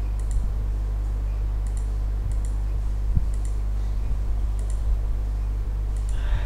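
Computer mouse clicking while edges are picked one by one in CAD software: a sharp click about once a second, each a quick press-and-release pair, over a steady low electrical hum.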